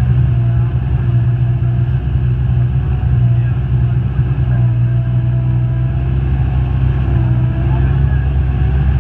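Steady low rumble of a motor vehicle running under way, with faint pitched sounds drifting over it.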